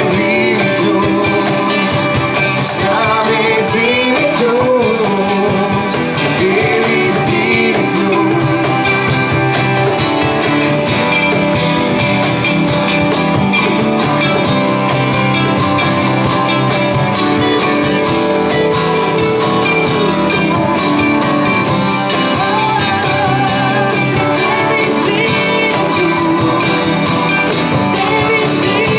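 Live worship band playing: a woman singing lead into a microphone over acoustic and electric guitars and keyboard, with a steady beat.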